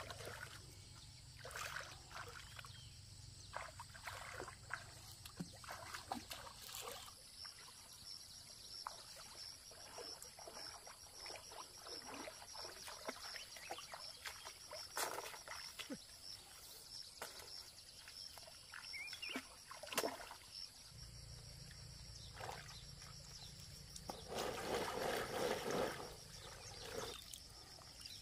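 Water splashing and sloshing in small, irregular splashes, with a longer, louder spell of sloshing near the end. A faint steady high whine runs underneath.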